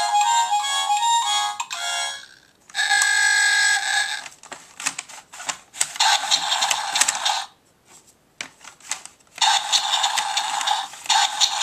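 A Play-a-Sound book's electronic sound module plays short clips through its small speaker as its dashboard buttons are pressed. It plays a brief jingle, then a held electronic tone, then two stretches of buzzy, crackly noise with short silent gaps between.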